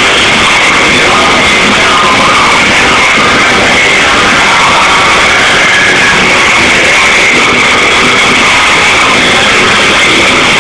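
Live heavy rock band playing loud through a PA, with electric guitars, held at a steady, very loud level throughout.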